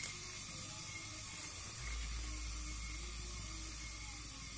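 Steady high hiss of background noise, with a low rumble of wind on the microphone from about two seconds in.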